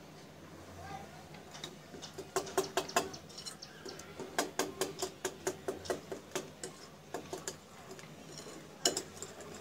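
Wire balloon whisk clicking against the side of a bowl while it mixes flour and wet ingredients into cupcake batter, about four clicks a second. It starts about two seconds in and runs for several seconds, with a couple more clicks near the end.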